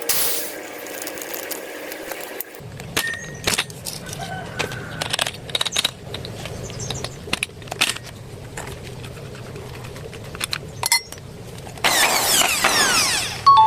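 Scattered metal clinks and taps from handling metal tool parts, then a loud burst of noise about twelve seconds in whose pitch slides downward over a second and a half, ending in a short metallic ring.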